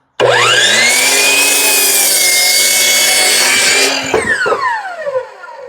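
Electric power saw starts with a quickly rising whine and cuts through a wooden post for about three and a half seconds. It is switched off about four seconds in and its whine falls away as the blade spins down.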